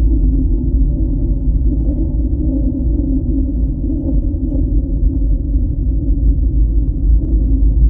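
Deep, steady rumbling drone with low held tones above it, an ominous ambient score.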